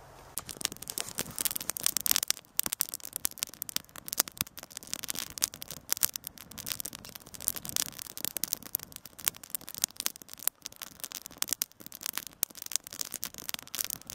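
Twigs and kindling crackling and popping as they burn in a Dakota fire hole, with dense, irregular snaps throughout.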